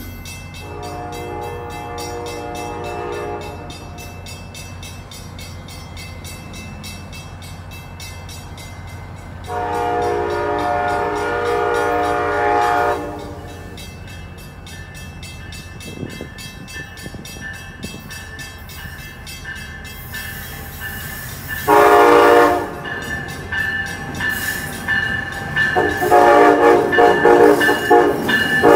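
Amtrak ACS-64 electric locomotive's air horn sounding chords as the train approaches. A faint blast comes near the start, a loud long blast about ten seconds in, and another about twenty-two seconds in. Near the end comes a string of quick toots, a horn show. A low steady hum runs underneath.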